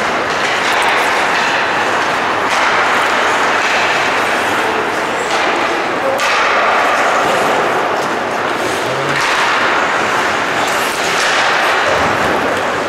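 Ice hockey play in an indoor rink: a steady scraping hiss of skates on the ice, with sticks and puck clacking and thuds against the boards, echoing in the hall. Voices call out in the background.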